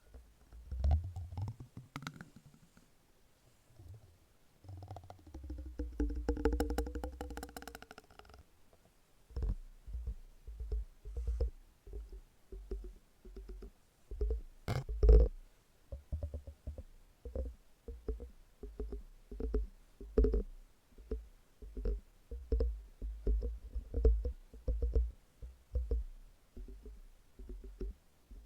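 Close-up handling of soft silicone objects: a few dull thumps, a buzzing vibration for about three seconds, then a steady run of soft, low taps about two a second, with one sharper, louder knock in the middle of that run.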